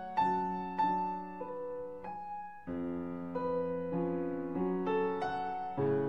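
Background music: a slow, gentle piano piece, single notes struck about every half second over held chords, with a change of chord a little under halfway through.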